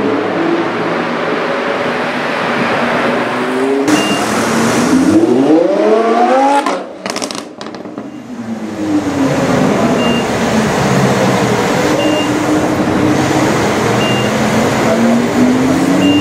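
Lamborghini Huracán's 5.2-litre V10 through an Fi aftermarket exhaust, revs climbing hard about four seconds in, then the throttle closing with a short burst of exhaust crackles. It settles into steady running, and the revs climb again near the end.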